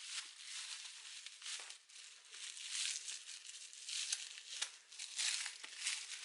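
Plastic bag crinkling and rustling in irregular bursts as a doll's arms, wrapped in plastic to slip past rubbery hands, are pushed through tight sleeves.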